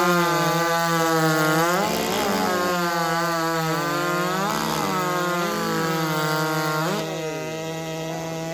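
Big-bore racing chainsaw of over 90cc running at full throttle through a timed cut in a log, its high engine note dipping briefly several times as the chain loads up. The pitch falls away and the saw gets quieter about seven seconds in as the cut finishes.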